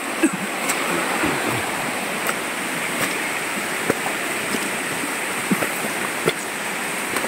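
Steady rushing of a river's flowing water, with a few faint clicks scattered through it.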